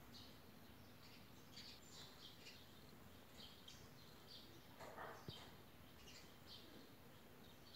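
Near silence with many faint, short, high chirps scattered throughout, and a soft click about five seconds in.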